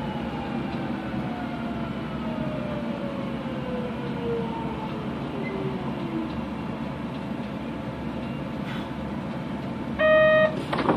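Kobe City Subway 3000 series train heard from inside the car, its Hitachi GTO inverter and traction motors whining in several tones that fall steadily in pitch as the train slows, the whine dying away about six seconds in over steady running noise. Near the end a short loud beep sounds, followed by a click.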